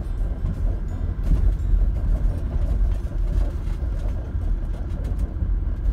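Car driving slowly, with a steady low engine and road rumble and faint tyre ticks.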